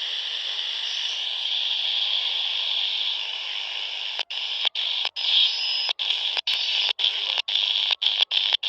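Handheld radio's speaker hissing with steady band noise and no station audible. A little over four seconds in, the hiss starts cutting out in brief, sharp gaps, about two a second and growing more frequent.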